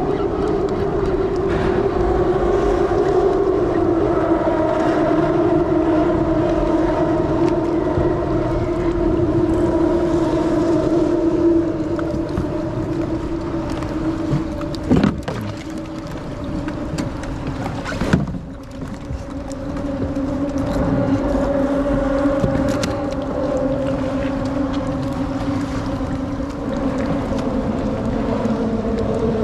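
A boat's engine running steadily, its hum sinking slightly in pitch and then holding. Two sharp knocks come about halfway through.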